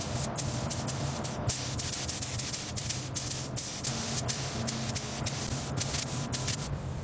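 Spray nozzle hissing in a run of bursts with many brief breaks, over a steady low hum.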